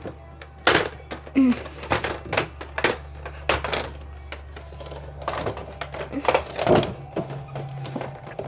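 Irregular clacks and knocks of hard plastic as a stuck Nerf blaster is tugged and jostled, not coming free.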